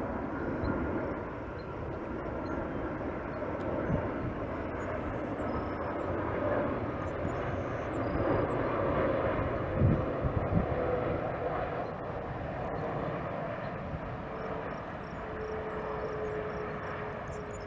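Airbus A330-900's Rolls-Royce Trent 7000 turbofans on final approach at low thrust: a steady jet rumble with a whine that slowly falls in pitch as the airliner passes.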